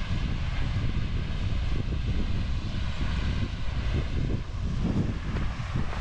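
Wind buffeting the microphone: a low, gusting rumble with a fainter hiss above it.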